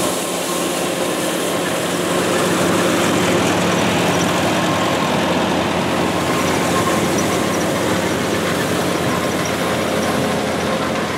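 Farmall tractor engine running steadily while the tractor is driven, heard close up with a steady rushing noise over it.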